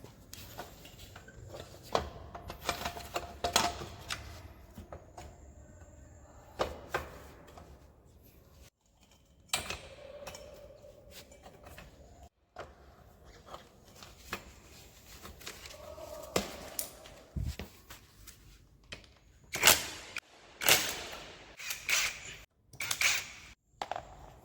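Hand tools clinking and knocking on a motorcycle's metal parts, in scattered sharp strikes with short ringing tones, busiest and loudest near the end.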